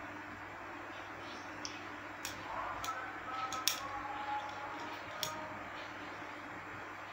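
A few light clicks and taps, the sharpest a little past halfway, as a kitten paws at a pair of eyeglasses, over a steady background hum.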